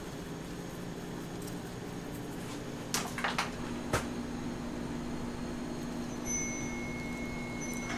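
Kitchen background hum, with a few sharp clicks or knocks about three to four seconds in, likely from steel bowls being handled.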